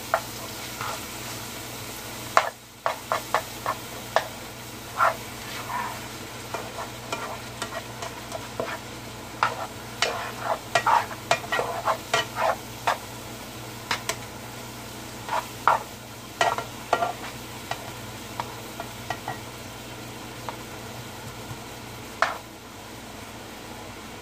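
Steak strips sizzling in a frying pan while a plastic spoon stirs them, with irregular sharp taps and scrapes of the spoon against the pan. The meat is browning.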